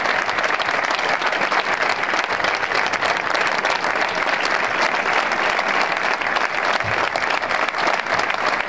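Crowd applauding steadily, a dense even clatter of many hands clapping.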